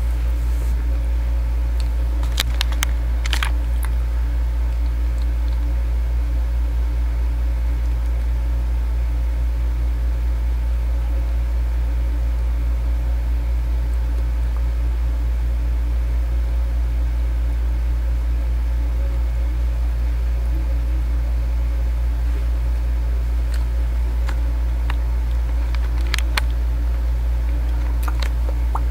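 Steady low electrical or fan-like hum. A few faint short clicks come about two to three seconds in and again near the end.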